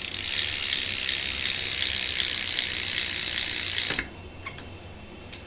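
BMX rear hub freewheel ratcheting in a fast, even buzz of clicks as the back wheel spins freely. It cuts off suddenly about four seconds in, as the brake stops the wheel.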